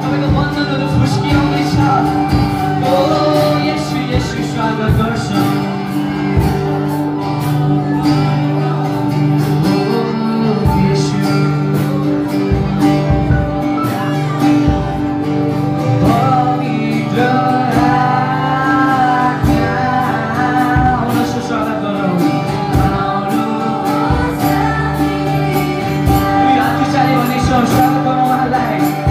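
Live worship music: a man and a woman singing through microphones over an amplified acoustic guitar, with a steady beat.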